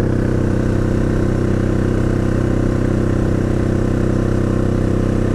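Can-Am Outlander XMR 1000's V-twin engine running at a steady, unchanging speed as the ATV moves along. The machine is in limp mode and running rough.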